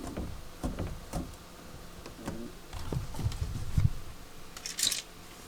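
Scattered light clicks and taps, with a few soft low thumps about three seconds in, from handling things in a small room.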